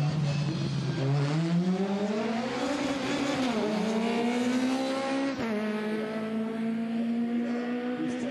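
Two-stroke racing kart engine at high revs, its pitch climbing, dipping briefly about three and a half seconds in, climbing again, then dropping sharply a little past five seconds and holding steady.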